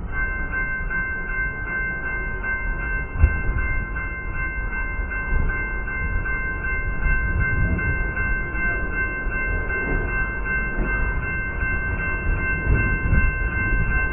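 Freight train backing slowly through a grade crossing: a low rolling rumble from the cars, with a steady high-pitched tone held throughout and one sharp knock about three seconds in.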